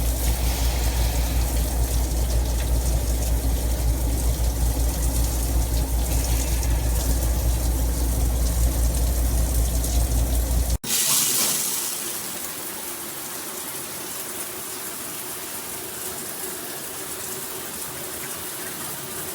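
Brass high-flow shower head spraying at full pressure: a steady hiss and rush of falling water. About eleven seconds in the sound cuts abruptly to a quieter, higher hiss that opens with a brief splash.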